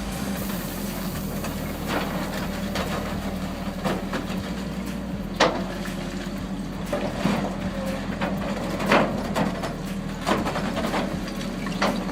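An excavator's diesel engine runs steadily while a GRYB hydraulic concrete pulverizer crushes concrete, with irregular sharp cracks and knocks of concrete breaking and falling.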